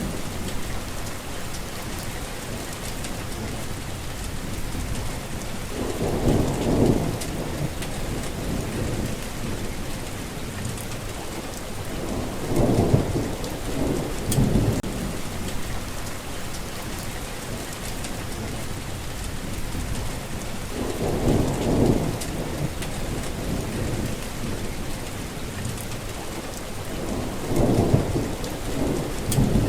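Steady heavy rain falling, with low thunder rolling in four times, the loudest roll about halfway through.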